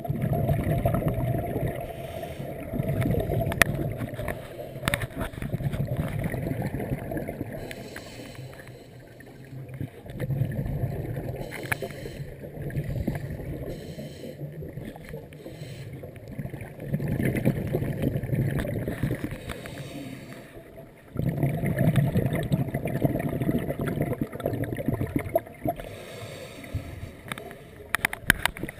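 Scuba diver's regulator breathing heard through an underwater camera housing: muffled rushes of exhaled bubbles every few seconds, each lasting one to two seconds, with quieter gaps between.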